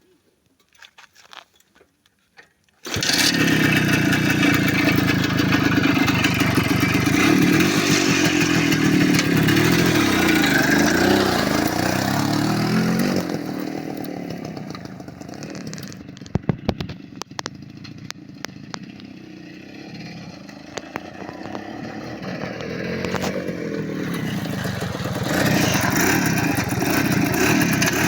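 Minsk 175 motorcycle engine starting about three seconds in and revving up and down, then dropping to a quieter idle with a few clicks before revving louder again near the end.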